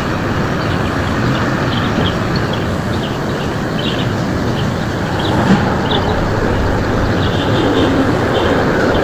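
Faint short bird chirps over a loud, steady rushing rumble that swells a little in the second half.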